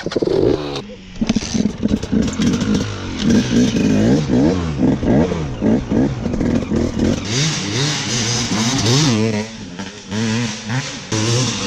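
KTM 250 XC-W two-stroke dirt bike engine revving up and down repeatedly as it is ridden off, pitch rising and falling with throttle and gear changes. It is pulling with full power, its exhaust power-valve actuator arm just refitted.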